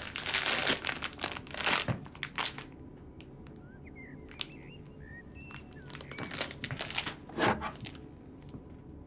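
A plastic sweets bag crinkling and rustling as it is handled, in a dense bout over the first two or three seconds and a second bout about six to seven and a half seconds in.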